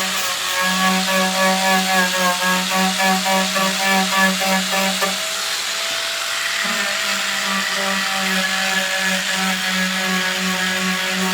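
An electric power tool running steadily with a motor hum, pulsing a few times a second in the first half as the load on it changes.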